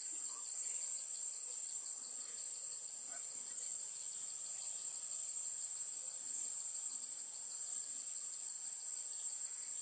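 Steady, shrill insect chorus droning without a break.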